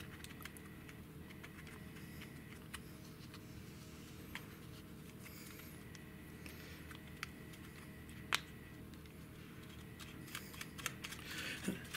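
Faint scattered clicks and taps of a plastic filter baffle being handled and threaded by hand onto a compressed-air filter separator body, over a low steady room hum. A sharper click comes about eight seconds in, and a run of small clicks near the end.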